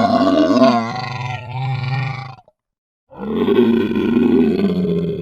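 Dinosaur sound effect: two long, low growling roars with a gap of about a second of silence between them, the first wavering in pitch partway through.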